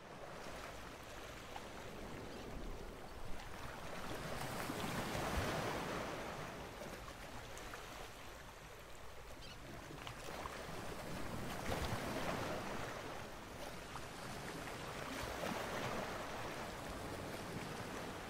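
Ocean surf: waves washing in and drawing back, rising and falling in slow swells every several seconds.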